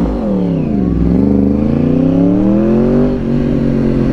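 2009 Yamaha R1's crossplane inline-four through a Hotbodies MGP stainless and carbon aftermarket exhaust, ridden hard. The engine note falls for about a second, rises steadily under acceleration for about two seconds, then dips about three seconds in and holds steady.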